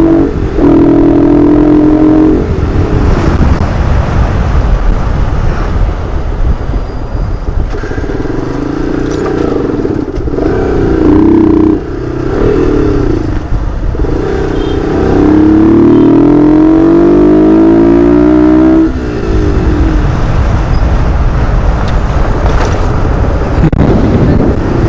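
Motorcycle engine running under way, its note holding and then rising as it accelerates through a gear. About three-quarters of the way in it climbs steadily and drops off suddenly at a gear change.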